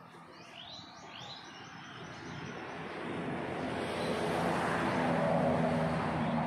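A few quick, falling bird chirps in the first second and a half, then a motor vehicle's engine growing steadily louder as it approaches, with a low hum under it.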